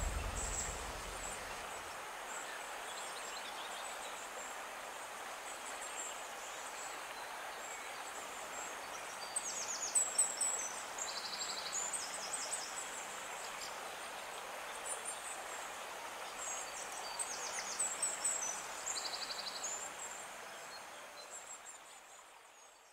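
Tropical forest ambience: a steady outdoor hiss with birds chirping and trilling in two bursts, around ten seconds in and again near eighteen seconds, fading out at the end.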